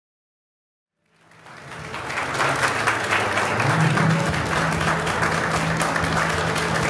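A group of people clapping their hands, fading in after about a second of silence and then holding steady. A low steady hum runs underneath from about halfway through.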